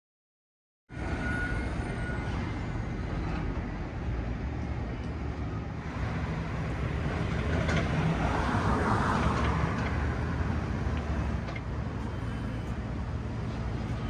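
Steady street traffic noise, starting abruptly about a second in, with a vehicle passing more loudly around eight to ten seconds in.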